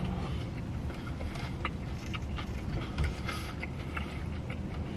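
Quiet chewing and mouth sounds of someone eating a fried chicken sandwich: scattered small clicks and rustles over a steady low hum.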